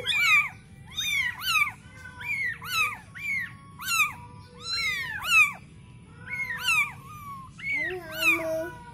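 Baby Bengal kittens mewing: a litter of thin, high cries, each rising and then falling in pitch, coming about twice a second and sometimes overlapping.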